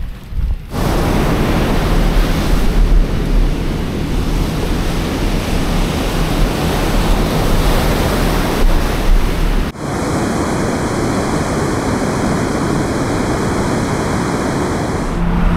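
Steady rushing of wind and ocean surf, with wind buffeting the microphone as a deep rumble. The sound changes abruptly about ten seconds in, as between two different shots.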